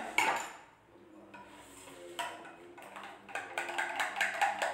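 A spoon clinking and scraping against a glass bowl while stirring melted chocolate. There are a few sharp clicks at the start, then a run of quick clicks in the last second and a half.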